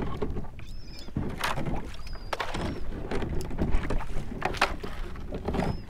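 Water lapping and splashing against a plastic kayak hull as it moves through shallow water, with a splash about once a second. Low wind rumble on the microphone runs under it, and a few short, faint high chirps come and go.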